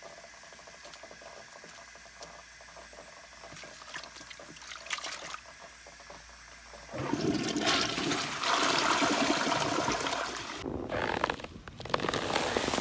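Rushing water, steady and moderate at first, then much louder about seven seconds in, with a short dip near the end.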